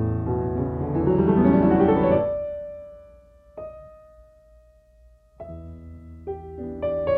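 Background piano music: a quickly rising run of notes fades out, a single note rings on alone for a while, and then a new phrase of chords begins.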